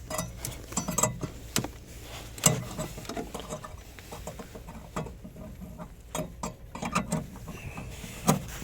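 Scattered, irregular light clicks and knocks of hands working the plastic parts of a Volkswagen Touran headlight: the new low-beam bulb's wiring connector and holder being handled and fitted.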